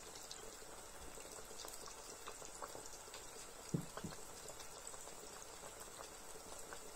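Hot oil sizzling and bubbling quietly around meat buns deep-frying in an electric pot, with faint scattered crackles. Two soft knocks come a little over halfway through.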